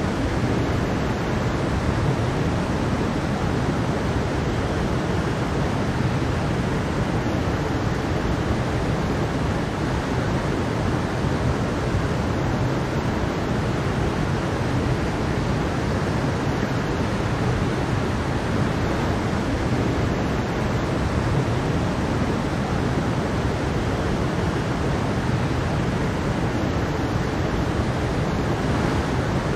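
Mountain stream flowing over rocks with a small waterfall: a steady, even rush of water with no breaks.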